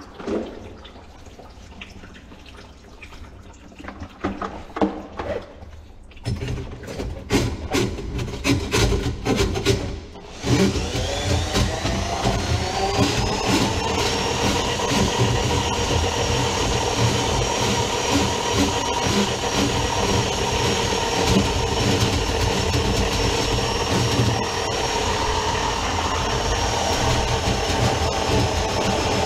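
Handling clicks and knocks, then about ten seconds in a Ridgid K-45 electric sink drain snake starts up. Its motor whines up in pitch over a few seconds, then runs steadily while the cable is fed into the clogged kitchen drain.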